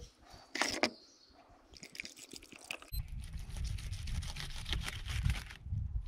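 Wine poured from a glass bottle into a camp cup in short splashes. About three seconds in it gives way to wind rumbling on the microphone and a knife scraping and clicking as it cuts roast beef in a foil tray.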